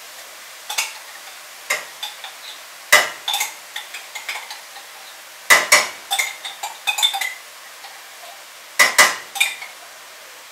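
Spoon clinking and knocking against a pan as green curry paste is stirred into chicken, in scattered clusters of sharp knocks.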